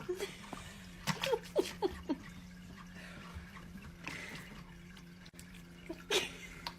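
Water dripping: a quick run of drops about a second in and a few more near the end, over a steady low hum.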